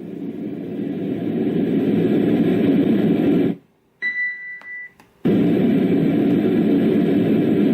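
Dreamegg D3 white noise machine playing a deep, rumbling noise that grows louder over the first couple of seconds. The noise stops abruptly, a single electronic beep of under a second follows, and then the noise starts again suddenly.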